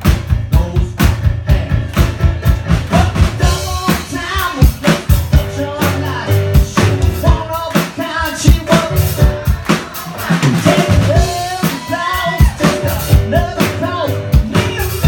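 Live band music: a drum kit playing a steady beat with bass drum and snare, under piano, with singing coming in about three seconds in.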